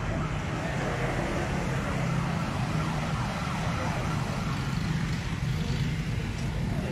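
Road traffic on a busy avenue: a steady mix of car and motorcycle engines running and passing.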